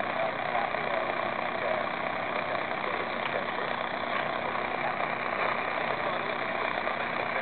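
Steady static hiss from a Sony Watchman pocket TV's small speaker as it pulls in a weak analog TV signal, with a faint, unclear voice from the broadcast underneath.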